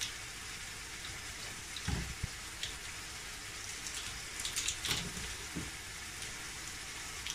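Chicken mince sizzling steadily in hot oil in a frying pan, with a few brief crackles and clicks about two and five seconds in.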